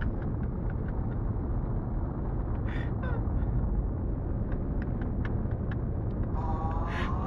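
Steady low road and engine rumble of a car at motorway speed, heard from inside its cabin, with faint light ticks scattered through it. A wavering pitched sound comes in near the end.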